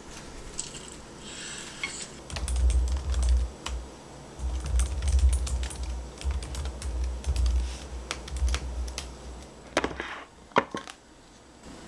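Typing on a MacBook laptop keyboard: quick runs of key clicks with dull thumps under them. Near the end, a few sharp separate clicks and a clack from the plastic snap-lock lid of a glass food container being handled.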